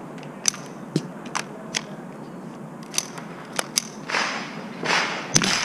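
Sharp mechanical clicks and clacks of a .22 rifle being worked by hand after it failed to fire, about seven of them spread irregularly over the first four seconds. Near the end come two longer rushes of noise and a sudden thump.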